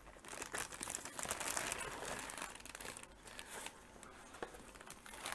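Clear plastic packaging bag crinkling and crackling as a boxed figure is handled, busiest for the first three seconds, then quieter.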